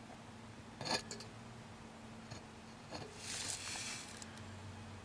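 Quiet handling of small tools and parts: a light metallic clink about a second in, then a brief scraping rustle around three seconds in, over a steady low hum.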